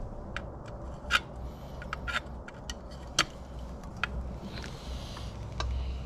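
Scattered sharp metallic clicks and ticks, two of them louder (about a second in and about three seconds in), from a long 3/16 Allen wrench being worked in the handguard screw of a Diamondback DB15 AR-15 rifle, with a brief scraping rustle near the end over a low hum.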